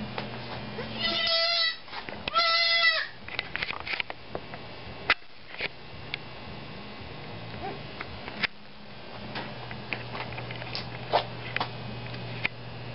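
Goat kid bleating twice, each call under a second long with a quavering pitch, followed by a few scattered light clicks.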